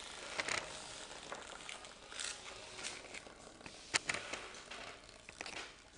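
Bristlebot, a toothbrush head shaken by a small vibration motor, skittering over a wooden table with a crackly rattle of bristles. Two sharp clicks come about four seconds in.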